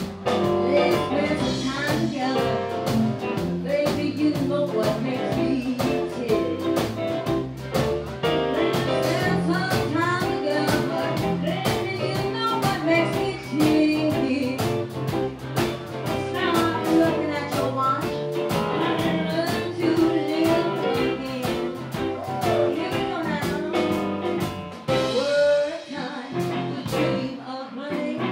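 Live blues band playing a blues number, with electric guitar, bass, keyboards and drums keeping a steady beat. The low end drops away for a few seconds near the end.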